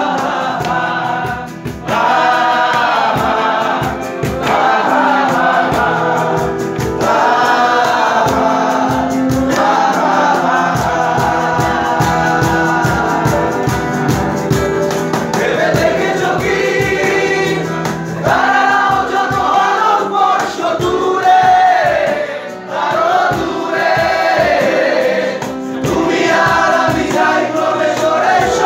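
Live acoustic band playing a song: singing over acoustic guitar, keyboard and a steady cajon beat.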